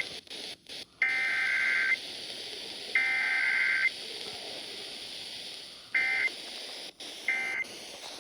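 Emergency Alert System SAME data bursts received off the air: harsh, buzzy two-tone digital chirps. Two bursts of about a second each, a second apart, end the repeated alert header; after a few seconds of radio hiss come two short end-of-message bursts near the end.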